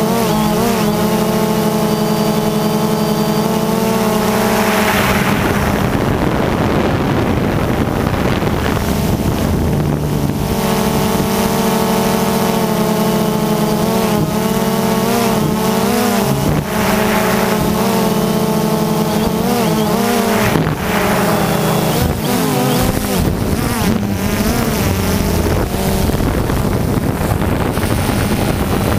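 DJI Phantom 2 quadcopter's electric motors and propellers droning, heard from the camera riding on it; the pitch slides up and down together as the throttle changes while it manoeuvres.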